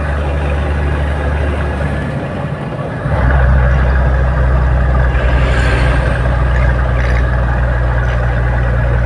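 Toyota Land Cruiser 80 series engine running steadily while the vehicle is driven. It dips briefly about two seconds in, then comes back louder from about three seconds.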